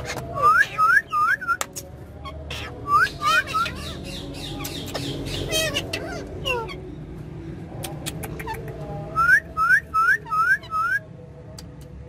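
Parakeet calling in quick runs of short, upward-hooked whistled chirps, several a second, in three bursts, with sharp clicks in between.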